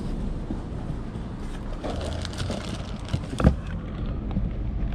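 Car parts being handled: small clicks and one sharp knock about three and a half seconds in, over a steady low rumble.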